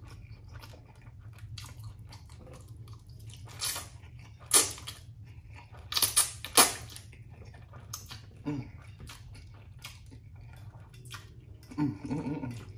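Instant noodles being slurped off a fork and chewed by a man eating, with several loud wet slurps in the middle. A low steady rumble runs underneath, and near the end a faint steady tone comes in from a passing train.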